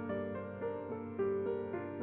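Gentle background piano music, a melody of single notes over a soft held low tone.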